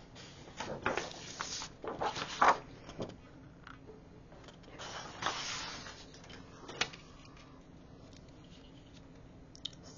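Sheets of patterned scrapbook paper rustling and sliding as they are handled and flipped on a cutting mat, in short bursts with a sharp tap about two and a half seconds in. A steel ruler clicks down onto the paper near seven seconds.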